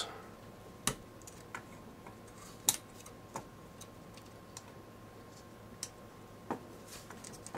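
A few scattered sharp clicks and taps, the loudest about a second in and near three seconds, as flat ribbon-cable connectors are worked loose from a camera's circuit board.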